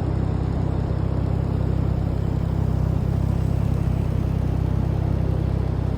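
Snowmobile engine running steadily with a low, even rumble.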